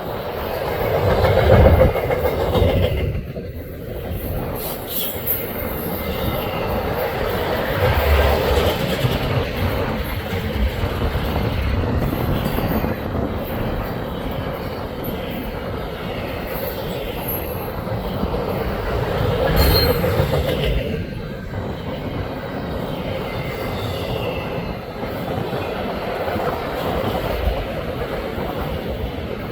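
Freight train of double-stack container cars and auto racks rolling past: steady rumble of steel wheels with clacking over rail joints, swelling and easing as the cars go by.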